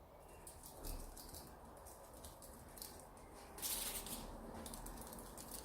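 A kitten's claws and paws pattering and scratching on a surface: a run of light clicks and scratches, with one louder scrape about three and a half seconds in.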